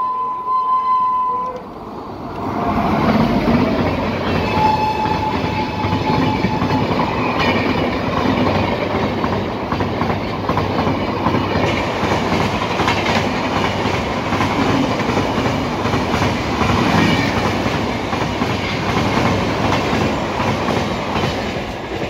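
An express train's horn sounding, stopping about a second and a half in. Then the train passes at speed: a loud, steady rush of wheels and coaches on the rails with rapid clickety-clack, and a second, lower horn note about five seconds in.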